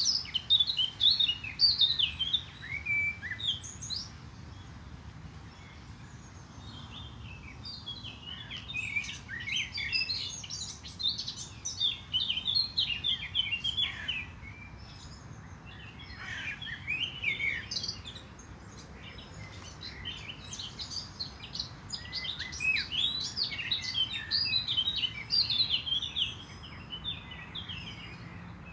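Several songbirds singing in bouts of quick chirps and trills, with short lulls between bouts, over a faint steady low background noise.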